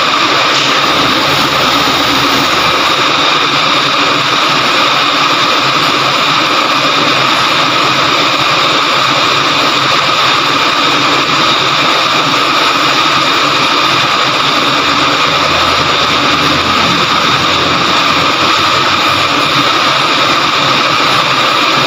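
Loud, steady machinery drone with a constant whine in it and no break or change.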